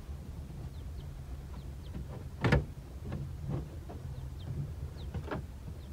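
Plastic lower dash trim panel under a van's steering column being pulled free: one loud snap about two and a half seconds in as a retaining clip lets go, then several lighter clicks and knocks of the plastic.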